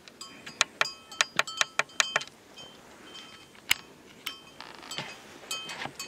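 Metallic clinking: a quick run of about ten sharp clinks in the first two seconds, each ringing briefly at the same few pitches, then scattered single clinks.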